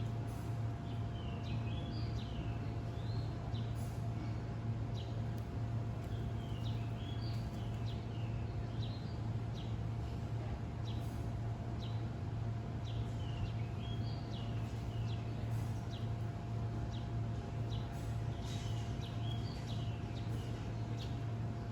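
A bird sings a short chirping phrase over and over, a burst of quick up-and-down notes every few seconds, over a steady low hum.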